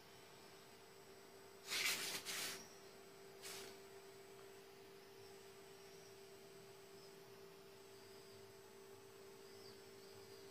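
Faint steady electrical hum, a low pure tone, in a quiet garage. About two seconds in comes a short burst of noisy handling sound, and a smaller one a second and a half later.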